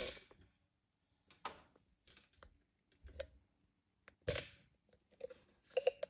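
A few short, light clicks and knocks, spaced irregularly with quiet between them and the strongest about two-thirds of the way through: handling noise around the phone and the glassware on the countertop.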